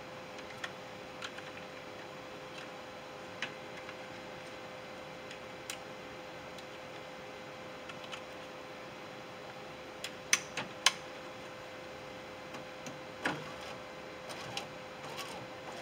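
Sparse light clicks and knocks from hands working the window regulator and its cables inside a truck door, with a cluster of sharper clicks about ten seconds in and a knock a few seconds later, over a steady faint hum.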